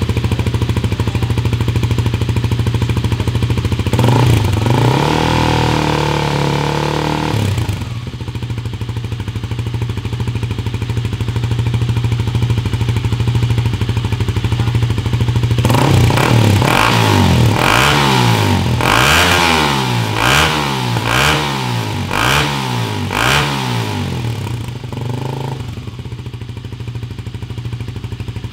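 Kawasaki Ninja 250SL's single-cylinder four-stroke engine running through an Arrow Thunder slip-on exhaust with its dB killer fitted. It idles, is revved up and held for about three seconds, then idles again. Later comes a quick run of about eight throttle blips, then it settles back to idle with one small blip.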